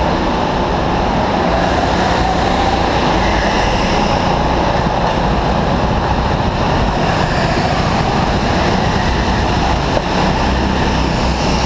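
Steady, loud mechanical running noise of go-kart engines, with a brief click about ten seconds in.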